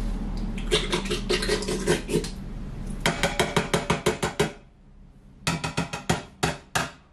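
Metal clinks and knocks as a can of coconut milk is tapped and worked empty over a stainless steel Instant Pot insert, in three runs of rapid knocks with a short pause before the last.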